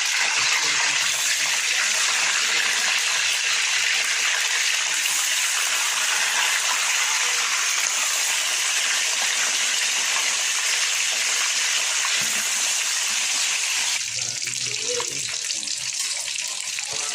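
Water running steadily from a kitchen tap, easing off about fourteen seconds in.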